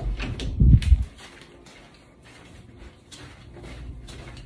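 Handling noise from a hand-held phone being carried: a loud low rumble in the first second, then faint rustling and light clicks.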